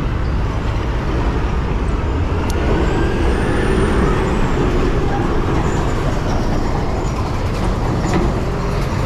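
Street traffic noise, with a heavy vehicle such as a bus or truck running close by.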